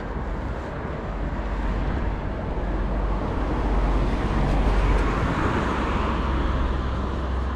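Steady rumble of wind and tyre noise from an off-road Segway riding along a pavement, with road traffic going by alongside. The noise swells a little around the middle.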